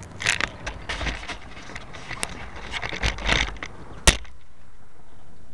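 Close handling noise of a handheld camera, with rustling and scraping against the microphone, ending in one sharp click about four seconds in. A steady, even hiss follows.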